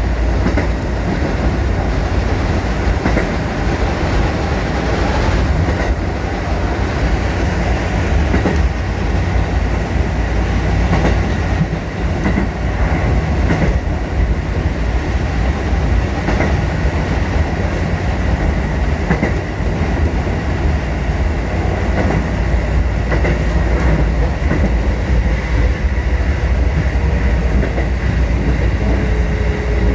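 Electric commuter train running along the line, heard from inside the car: a steady low rumble of wheels and running gear, with occasional clicks as the wheels pass over rail joints.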